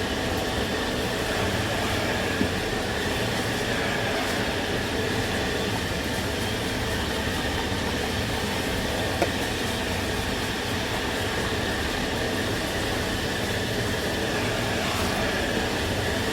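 Steady roar of a commercial kitchen's gas burners and ventilation, with a couple of small knocks.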